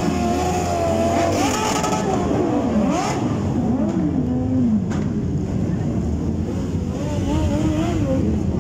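Several motorcycle engines revving over and over, their pitch climbing and falling in overlapping swoops, over the steady rumble of many bikes idling.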